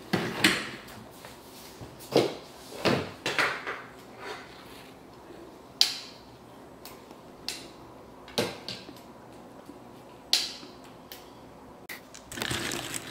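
A folded glossy paper puzzle poster being unfolded and handled: irregular crinkles and sharp crackles a second or two apart, with a denser rustle near the end.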